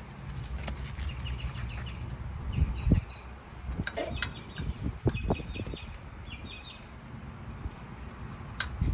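Scattered clinks and knocks of hand tools being handled while a socket is looked for, with a bird chirping in short, quick trills over a low background rumble.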